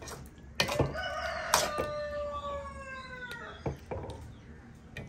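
A rooster crows once: one long call with a slowly falling pitch, starting about half a second in and lasting about two and a half seconds. A few sharp knocks of a metal spoon against the metal cooking pot come near the start of it.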